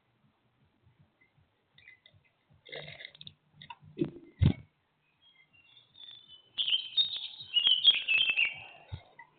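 A bird moving about inside a wooden nest box: scattered scratching, two sharp knocks about four seconds in, then a run of high chirps mixed with scrabbling clicks near the end, the loudest part.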